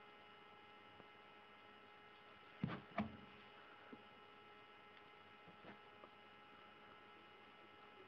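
Near silence with a steady electrical hum, broken by two soft bumps close together about three seconds in and a few faint ticks after.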